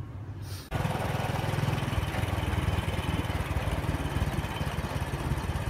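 Small motorcycle engine running steadily while riding along, with wind rushing on the microphone; it cuts in abruptly less than a second in.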